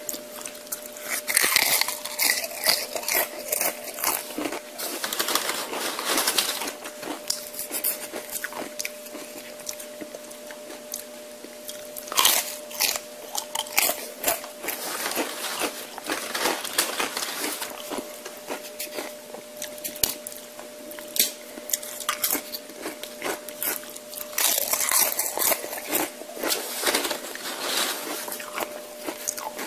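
Close-miked eating sounds: irregular crunchy bites and chewing, with clusters of louder crunching, over a faint steady hum.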